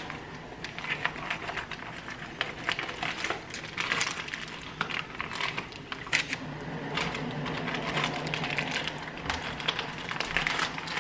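A plastic bag of raw chicken thighs crinkling and rustling as it is pulled open and handled, with many small irregular clicks and crackles, over a faint low steady hum.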